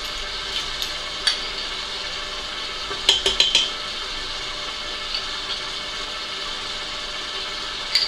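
Electric stand mixer running steadily, beating cake batter in a stainless steel bowl, with a few light metallic clinks from a metal measuring spoon; a quick cluster of four comes about three seconds in.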